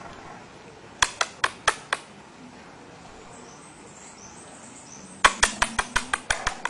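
A quick series of sharp taps or clicks: five in a row about a second in, then a faster run of about ten near the end.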